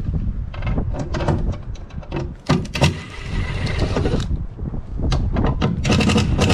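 Clicks, knocks and scraping from a panel on a boat being handled and opened, with a stretch of scraping hiss about halfway through.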